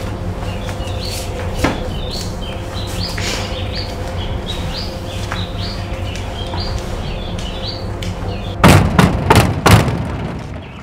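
Birds chirping repeatedly over a low steady hum, then near the end a quick run of about five loud bangs of a hand knocking on a metal gate.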